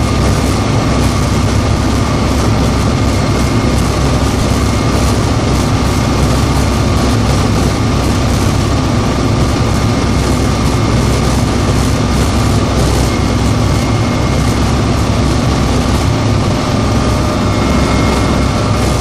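AgustaWestland AW189 twin-turbine helicopter in cruise flight, heard from the cockpit: a loud, steady drone of rotors and engines, with a constant high whine over it.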